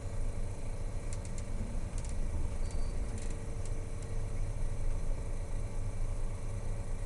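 Steady low rumble of a 1960 Chrysler Saratoga's V8 engine and road noise heard from inside the cabin while cruising, with a few faint clicks between one and three and a half seconds in.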